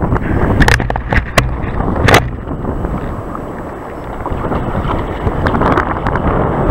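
Wind buffeting the microphone over splashing water as a sea kayak is paddled through chop, with three sharp splashes in the first two seconds or so.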